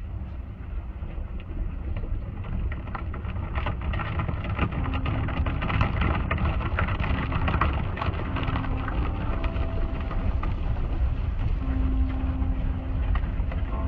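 Automatic car wash heard from inside the car: water spray drumming on the windshield and roof, and spinning cloth brushes slapping and scrubbing across the glass over a low rumble. It grows louder and busiest with slaps in the middle as the brushes pass over.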